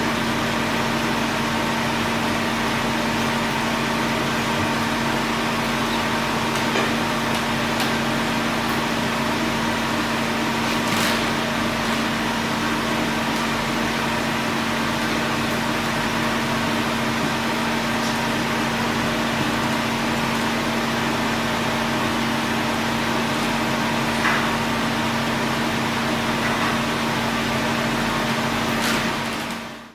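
Steady mechanical hum of a running machine with a constant low drone and a fainter higher tone, with a few faint ticks, fading out at the very end.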